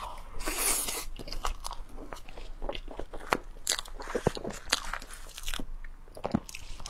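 Close-miked eating sounds: chewing and mouth noises on a soft, creamy food, with many small sharp clicks, and a spoon scooping from a plastic tub.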